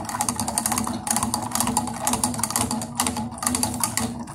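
Whisk beating rapidly against the sides and bottom of a stainless-steel saucepan, a fast, steady run of clicks, stirring strawberry jelly powder into just-boiled water to dissolve it.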